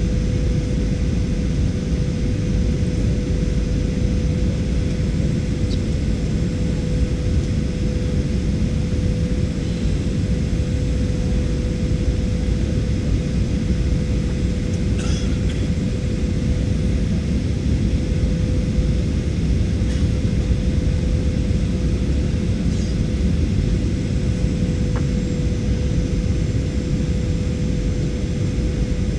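Cabin noise inside a Boeing 737-800 on its landing approach: the CFM56 turbofan engines running steadily over a deep rush of airflow, with a steady hum held throughout.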